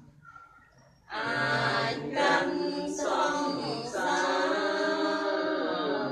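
A group of mostly women's voices chanting a Buddhist prayer in unison. The chant pauses briefly at the start and picks up again about a second in.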